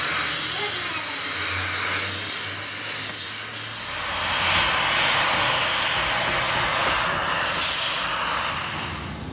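Gas torch flame hissing steadily as it heats the steel bore of a truck trunnion bracket red-hot. It gets a little louder and fuller about four seconds in.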